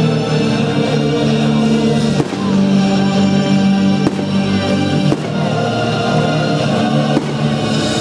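Loud music with singing and held chords, broken by a few sharp bangs of fireworks at uneven gaps of one to two seconds.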